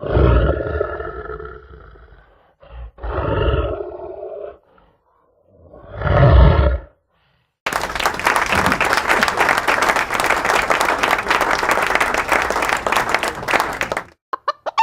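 Three deep animal roars from a sound-effects recording, the last the loudest, in the manner of a big cat. About half-way through they give way to six seconds of a dense, steady crackling noise.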